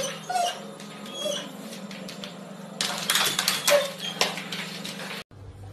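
A cat and a dog scuffling: a clatter of knocks, thickest in the middle, with short squeaky animal cries over a steady low hum. The sound cuts off suddenly near the end.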